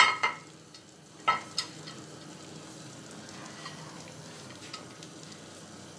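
Metal Bundt cake pan knocking a few times as it is lifted off a turned-out chocolate cake and put aside, the first knock the loudest, all within the first two seconds. A faint steady hiss runs underneath.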